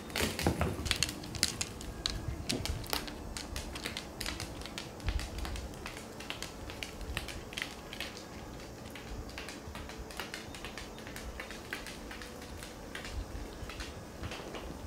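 Small dogs' claws clicking on a hardwood floor as they walk about, a rapid irregular patter that is loudest and busiest in the first few seconds.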